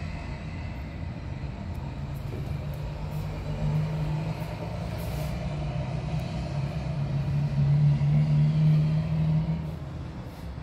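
Low, steady engine rumble of a motor vehicle, with a pitched hum that grows louder about eight seconds in and eases off near the end.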